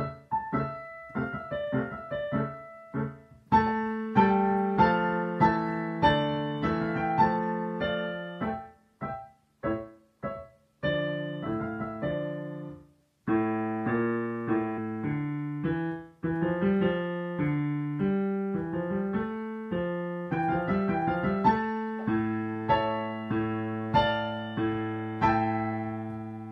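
Digital piano played with both hands: short detached notes at first, then louder held chords over a bass from about three and a half seconds in, a stretch of separate short chords with gaps near the middle, and full held chords again toward the end.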